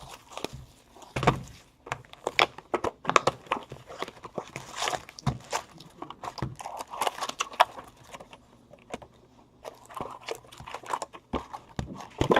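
Trading-card packaging being handled: irregular clicks, taps and crinkling of cardboard boxes and foil pack wrappers.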